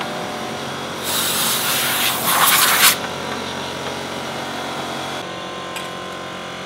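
Mechanics working on a speedway bike: a harsh rushing, rasping noise for about two seconds, loudest near its end, over a steady background hum.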